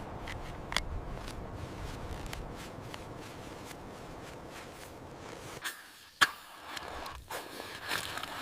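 Steady rushing noise with scattered soft clicks. About two-thirds of the way in the low rumble drops out suddenly and a few sharp snaps and a light crackling follow.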